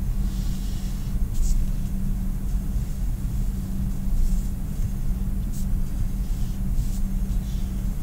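Steady low rumble with a constant low hum, under a few faint, brief scratches of a felt-tip marker drawing lines on paper.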